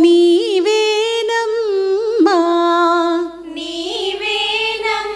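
Women's voices singing a line of a Telugu devotional song unaccompanied, holding long notes with small ornamental turns in pitch. There is a brief drop a little past halfway before the singing picks up again.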